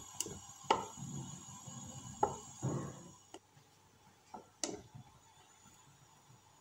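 Wooden spoon stirring a thin liquid in a glass saucepan, knocking and scraping against the glass: about half a dozen light, sharp knocks, the last a little before five seconds in.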